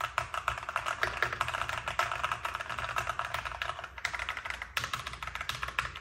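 Rapid typing on a Keychron V1, a 75% mechanical keyboard with a plastic case. The keys click in quick succession, with a brief pause a little before five seconds and a bit of ping.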